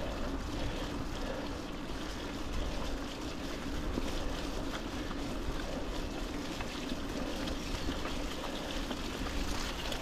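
Mountain bike rolling along a muddy trail: steady tyre, drivetrain and wind noise with a low hum and a few small clicks.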